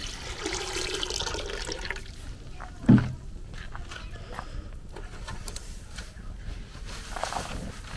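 Water pouring from a plastic jug into a square metal tin for about two seconds, then stopping. About three seconds in comes a single loud thump, followed by a few light knocks and rustles.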